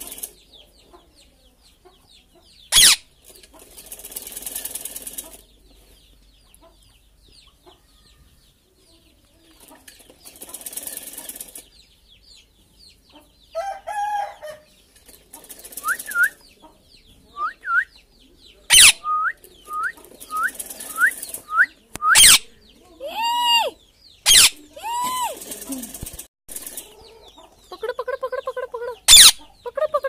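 Rose-ringed parakeet calling: in the second half a run of short rising chirps about once a second, then longer harsher calls, with several sudden loud screeches spread through. Between the calls come bouts of rustling.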